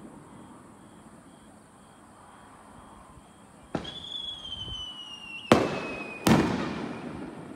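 Fireworks display: after a lull, a sharp crack about four seconds in sets off a high whistle that slides slowly down in pitch for about two and a half seconds, then two loud bangs less than a second apart, each trailing off in a rumble.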